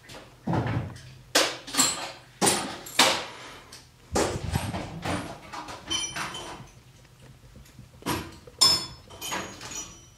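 Irregular knocks and clatter of objects being handled, with a few short ringing metallic clinks near the middle and toward the end.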